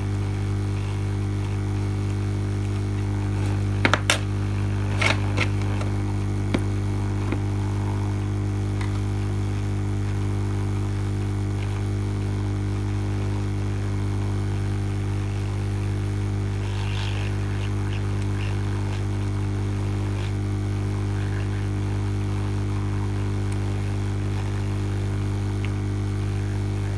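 Lukey 852D+ hot air rework station running with a steady hum, used to desolder parts from a circuit board. A few sharp clicks come about four to five seconds in.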